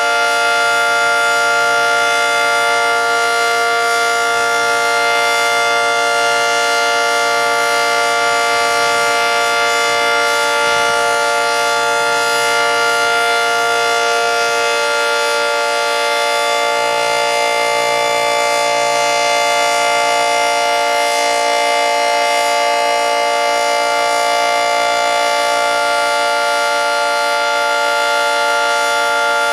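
Early-1960s Federal Signal 2T22 dual-tone outdoor warning siren sounding a test at full speed: a loud, steady two-tone chord holding one pitch throughout.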